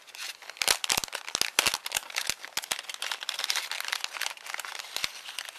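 Packaging crinkling and rustling as it is handled and opened, with many sharp crackles.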